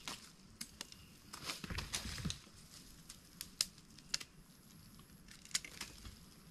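Bolo knives trimming freshly dug cassava roots: faint, scattered light chops and clicks at an irregular pace as the roots are handled.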